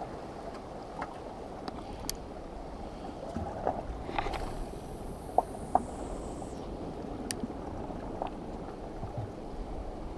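Steady rushing outdoor noise picked up by a GoPro's microphone, with scattered small clicks and knocks; two sharper clicks come close together about five and a half seconds in.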